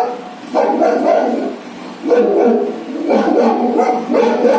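Little dog giving a run of drawn-out "woo" calls, about four in a row, each lasting roughly a second, played back from a video.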